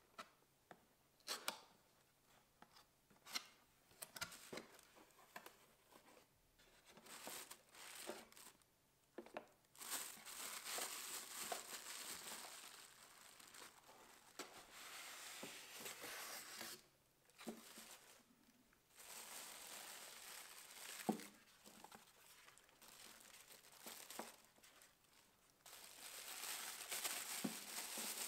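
Packaging being handled by hand. For the first several seconds there are scattered taps and scrapes of a cardboard box's flaps. After that come longer stretches of a plastic wrapping bag rustling and crinkling, with a few sharper knocks.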